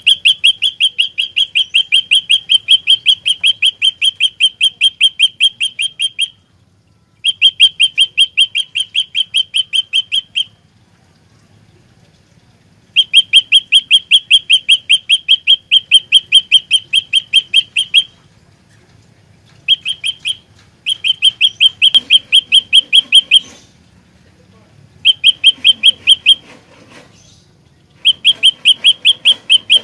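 Prenjak lumut singing a fast run of identical sharp chips, about seven a second, delivered in repeated bouts of a few seconds with short pauses between them.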